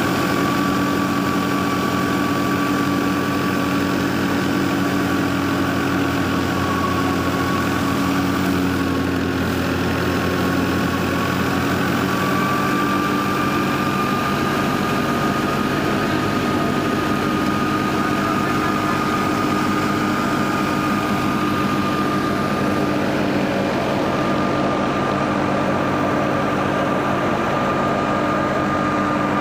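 Tractor engine driving a wheat thresher, running steadily: a constant drone with a high steady whine above it whose pitch wavers slightly.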